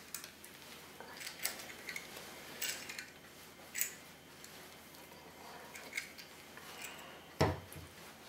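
Irregular metallic clicks and clinks of a brake caliper piston rewind tool being turned by hand, winding the piston back into a single-piston sliding rear brake caliper of GM W-body type. One heavier knock comes about seven seconds in.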